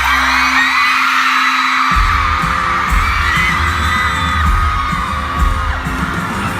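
Live pop concert music in a venue with a crowd of fans screaming over it; a heavy bass and drum beat comes in about two seconds in.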